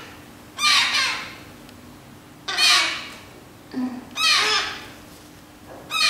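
Baby red-breasted parakeet giving harsh squawks, about one every second and a half, four in all, while being hand-fed with its beak held open.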